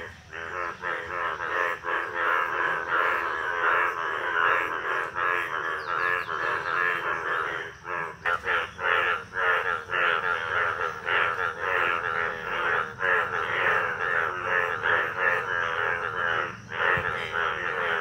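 A breeding chorus of many male Indian bullfrogs (Hoplobatrachus tigerinus) calling at once: loud, overlapping, rapidly pulsing calls with brief lulls about eight seconds in and again near the end.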